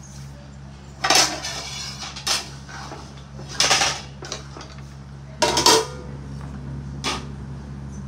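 Metal kitchen utensils, pots and lids clattering as they are picked up and set down: five sharp clanks, some ringing briefly, over a steady low hum.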